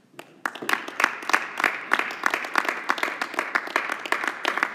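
A small audience clapping in applause, starting about half a second in and going on steadily.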